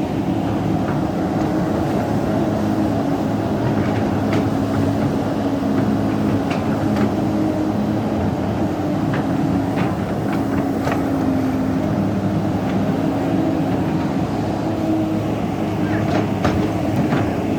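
Large excavator's diesel engine running steadily, with scattered sharp clicks and knocks throughout.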